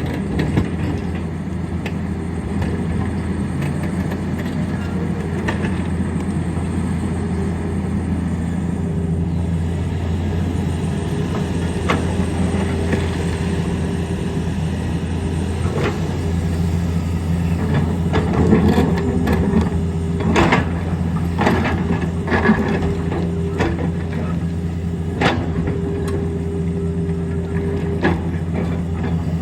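Tata Hitachi hydraulic excavator's diesel engine running steadily under load while digging out rock, with scattered sharp knocks and clanks, most of them in the second half.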